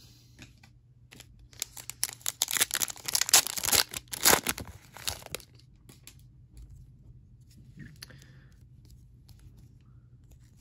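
A pack of football trading cards being torn open: dense crinkling and tearing of the pack wrapper starting about a second and a half in and lasting about four seconds. Soft handling of cards follows.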